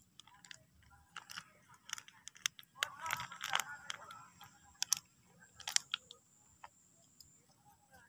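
Plastic sauce sachet crinkling and clicking as it is squeezed and handled, with a denser crackle about three seconds in and a few sharp clicks after it.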